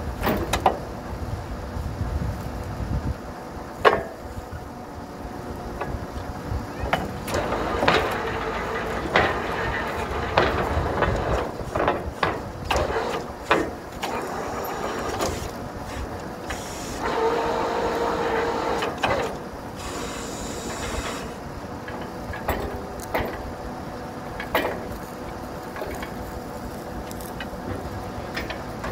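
Truck-mounted borewell drilling rig running, its engine and compressor droning steadily, with frequent irregular sharp knocks and clanks from the drill rods and drill head. There are spells of hissing air, the loudest just past the middle.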